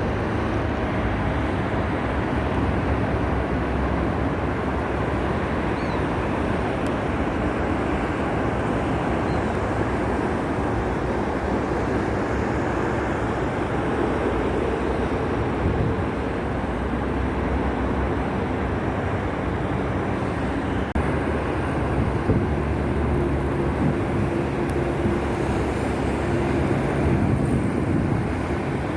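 Highway traffic noise: a steady, continuous rush of passing vehicles with no break.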